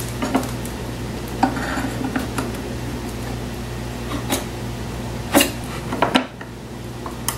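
Scattered light knocks and clicks of a wooden story stick, pencil and small tools being handled on a workbench, the loudest a little past the middle, over a steady low hum.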